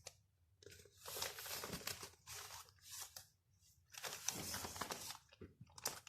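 Gift wrapping being crinkled and torn open in several short, irregular bouts.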